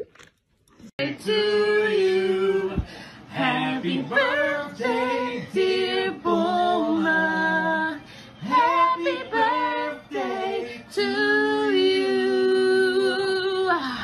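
A woman singing unaccompanied, with several long held notes.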